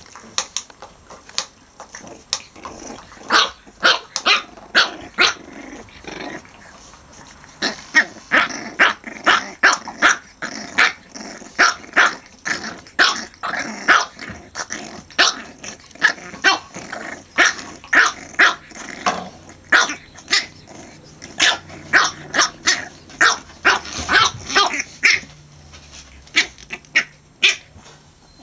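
French bulldog puppies play-fighting, giving short, sharp yaps and barks with growling in between, about two calls a second in quick runs, with a brief lull early on and tailing off near the end.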